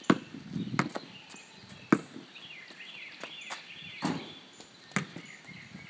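Basketball bouncing on an asphalt driveway: a series of sharp thuds spaced roughly a second apart.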